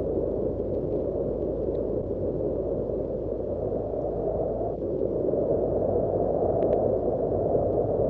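Wind over mountains: a low, steady rush with no gusting breaks, swelling slightly louder about halfway through.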